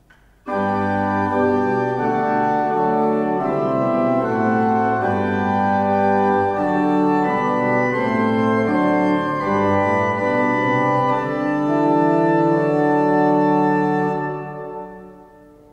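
Pipe organ playing a short piece in several voices on a flute-based registration: Rohrgedeckt 8' and Octave 4' on the main manual, with the swell's Gedeckt 8', Principalflöte 4', Nasat 2 2/3' and Blockflöte 2' added through the II/I manual coupler. It starts about half a second in and fades out near the end.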